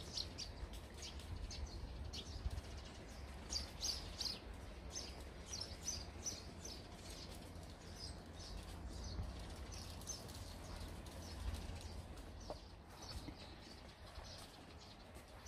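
Sparrows chirping, many short high chirps in quick succession, thinning out in the middle and picking up again near the end, over a low rumble.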